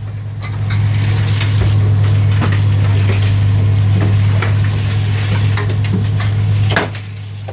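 Fishing boat's machinery running with a steady low hum while the longline is hauled, with scattered knocks and clanks from gear on deck.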